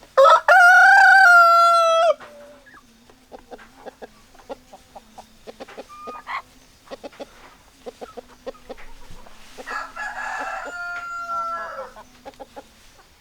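A rooster crows loudly near the start, one long call. Hens cluck in short scattered calls, and a second, fainter rooster crow comes near the end.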